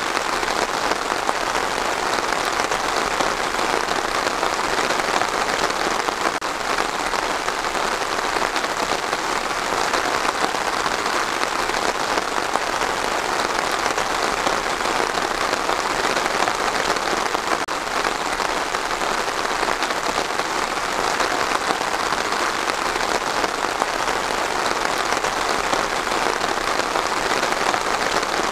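Steady rain falling on trees, an even hiss of drops that does not change.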